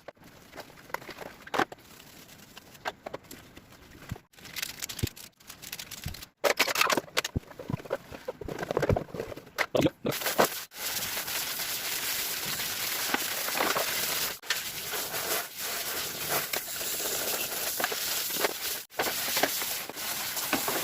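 Scattered clicks and knocks of plastic parts being handled, then from about halfway a steady hiss of water spraying, rinsing the dust out of the evaporative air cooler's filter pad.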